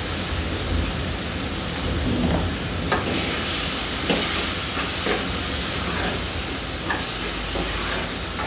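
Onion-tomato masala frying in oil in a kadai, sizzling, while a metal ladle stirs it and knocks against the pan a few times. The sizzle grows louder about three seconds in, once the stirring starts.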